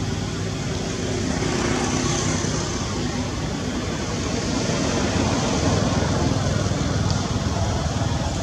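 Steady low rumble of motor vehicle traffic, with a constant hiss above it.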